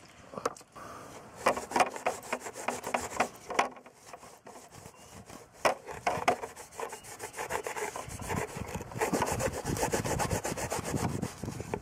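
A cloth wetted with methylated spirits rubbing on a plastic fuel tank and its spout to wipe off old fuel. Scattered scuffs and knocks at first, then brisk, rapid scrubbing strokes in the last few seconds.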